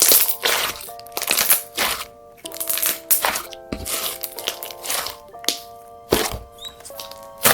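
Lemon jelly slime being squeezed and poked, giving a run of short noisy pops about once or twice a second, over gentle background music.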